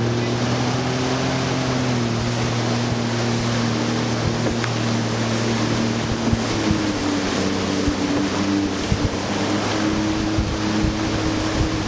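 Jet ski engine running under way, its pitch dipping a little about two seconds in and rising again a few seconds later, with water spray and wind rushing past the microphone.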